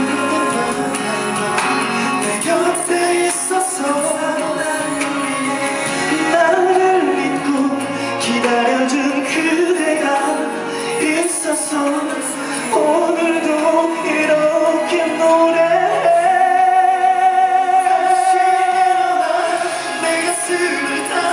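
Korean pop ballad with a sung lead melody over backing instruments. Near the end the singer holds one long high note with vibrato.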